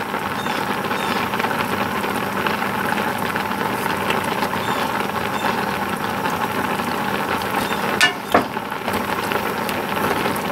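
Thick cream sauce simmering in a cast iron skillet: a steady bubbling hiss while a wooden spatula stirs it, with two sharp knocks against the pan about eight seconds in.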